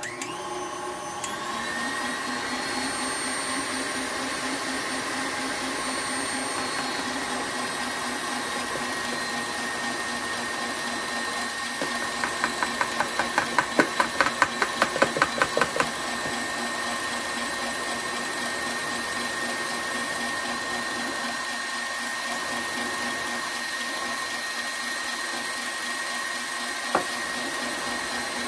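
KitchenAid Classic tilt-head stand mixer with its wire whisk starting up, coming up to speed within a second or two, then running steadily as it whips a dry powder mix in a steel bowl. About twelve seconds in comes a few-second run of rapid, regular ticks, about four a second, and near the end a single knock.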